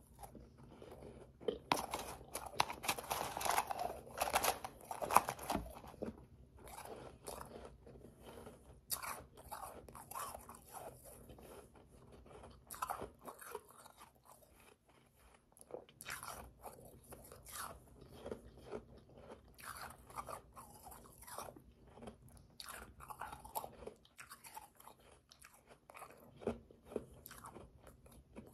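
Close-miked chewing and crunching of powdery, slushy ice: a dense run of crunches in the first few seconds, then scattered crunches through the rest.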